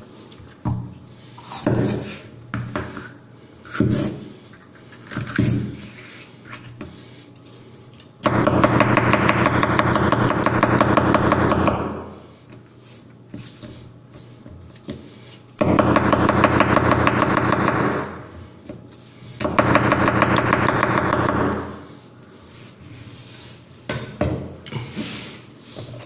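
Chef's cleaver chopping peppers on a wooden cutting board in scattered sharp knocks. Three times, for a few seconds each, a louder, fast, continuous rattle with a buzzing pitch comes in and cuts off abruptly; this is the loudest sound.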